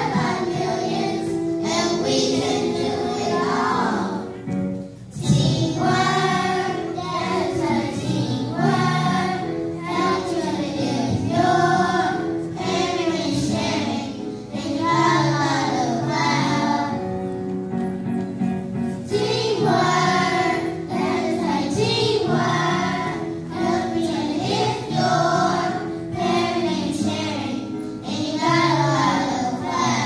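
Children's choir singing a song together over instrumental accompaniment, with a short break about four seconds in before the singing resumes.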